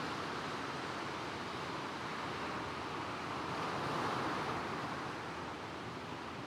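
Gentle sea waves washing over a shingle beach, with soft wind. The surf is a steady hiss that swells slightly about four seconds in as a wave comes in.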